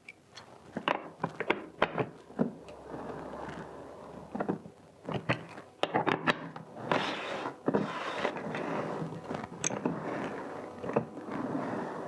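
Rovin Ecospin 2-litre manual washing machine being turned by hand, its plastic drum knocking and rattling. Rinse water swishes inside it, louder from about seven seconds in.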